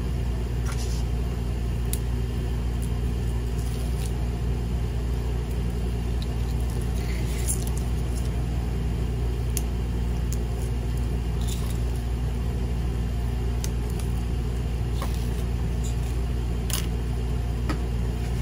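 A steady low hum, with scattered faint clicks and crinkles from double-sided tape being peeled off its backing and pressed onto a foam-board frame.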